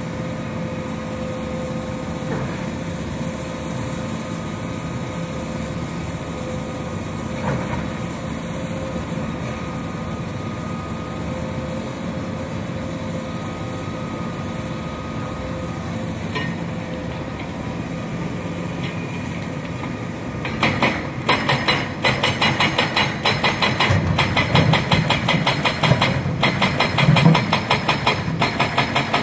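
Heavy diesel engines of an excavator and dump truck running steadily. About twenty seconds in, a louder, rapid rhythmic clatter of knocks starts, several a second, and keeps going.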